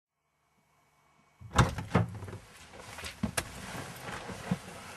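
Thumps and knocks from someone settling into a car's driver seat, starting after a second or so of silence. The loudest two come close together near the start, with a few lighter knocks after.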